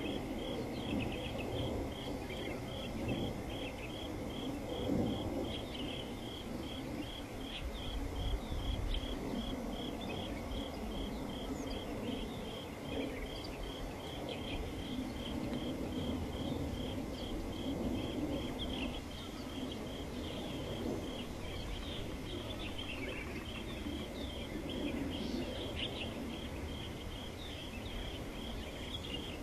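An insect chirping steadily in an even rhythm, about three chirps a second, over a low outdoor rumble.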